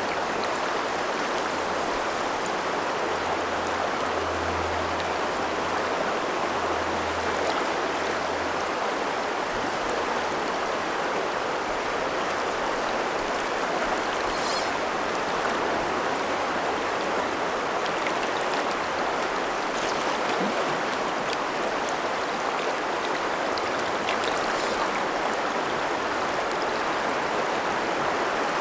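River water flowing steadily, a constant even rush of current.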